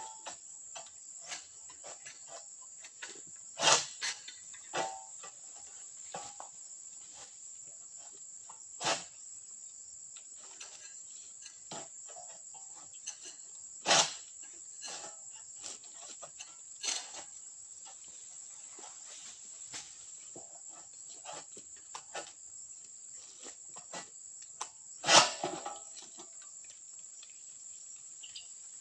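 Steady high-pitched chorus of insects, broken by several sharp knocks at irregular intervals, the loudest one near the end.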